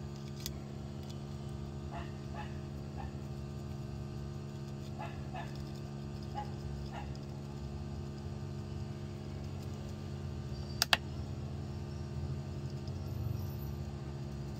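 Steady low hum, with faint short animal-like calls scattered through the first half and two sharp clicks close together about eleven seconds in.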